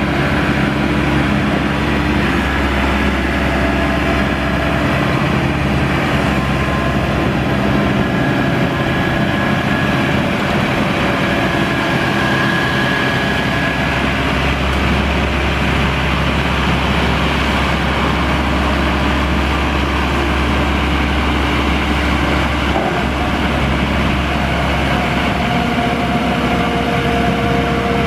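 Engine of a Maxxi WD3100 tracked rotary tiller running steadily as the machine tills a flooded paddy field.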